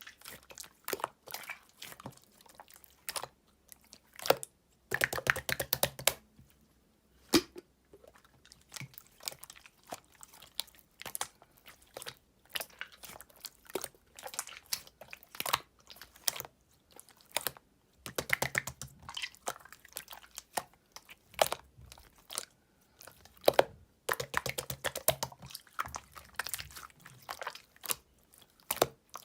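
Clear slime being squeezed and worked by hand, giving off sticky clicks and pops, with a few dense runs of rapid popping between sparser single clicks.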